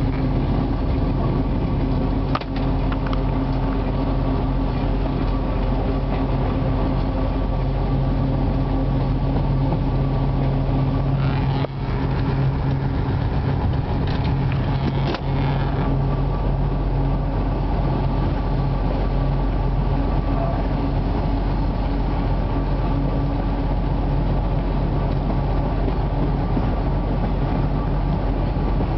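Steady drone of a 2M62 diesel locomotive's two-stroke V12 engine, heard from inside the rear cab as the locomotive runs, with a few sharp knocks about two, eleven and fifteen seconds in.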